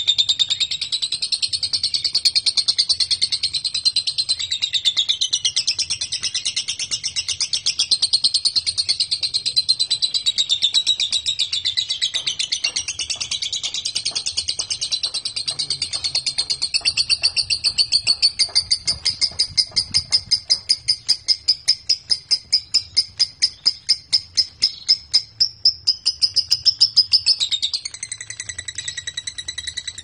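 Lovebird singing a long, unbroken, high-pitched chattering song. From about the middle until near the end it turns into a fast run of sharp repeated notes, about three a second.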